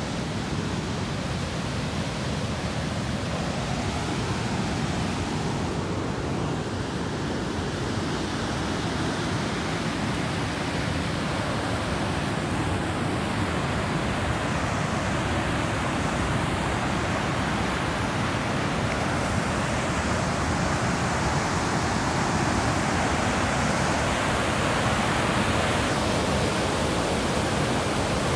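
Whitewater river rapids rushing in a steady, dense wash of water noise that grows a little louder toward the end.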